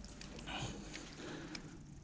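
A few light clicks and handling noises from a small spinning reel on an ice rod as a big fish is played, over a low background rumble.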